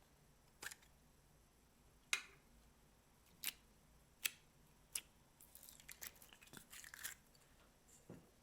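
Slime being pressed and kneaded by hand, giving five sharp pops a second or so apart, then a couple of seconds of rapid crackling, and a soft thud near the end.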